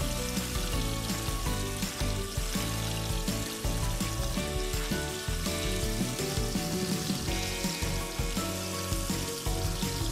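Flour-coated paneer cubes deep-frying in hot oil: a steady sizzle, with background music.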